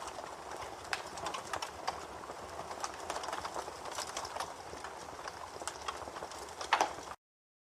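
Campfire crackling: a soft hiss full of irregular sharp pops and snaps, with a louder pop near the end, before the sound cuts off suddenly.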